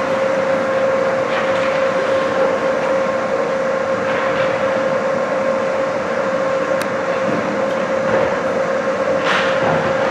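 Ice hockey rink sound: a steady hum with a constant tone under a hiss, with skate blades scraping the ice now and then and a sharper scrape about nine seconds in.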